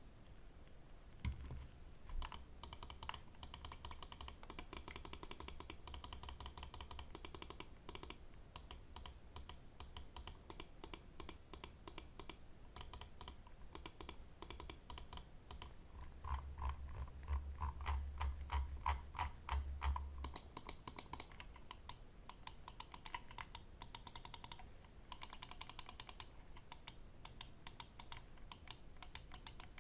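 Pulsar X2 Wireless Mini gaming mouse being clicked over and over in quick runs of sharp clicks, with short pauses between the runs.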